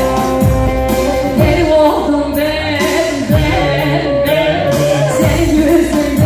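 Loud Turkish halay dance music from a band with a singer, over a steady drum beat.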